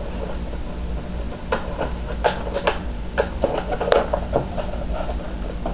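Cardboard box being closed up and handled, its flaps folding and tucking in, giving a run of light irregular taps and scrapes with one sharper knock about four seconds in, over a steady low hum.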